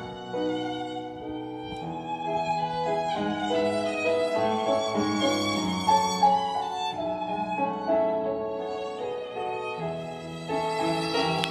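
Violin music playing continuously, a melody of changing notes over lower sustained notes.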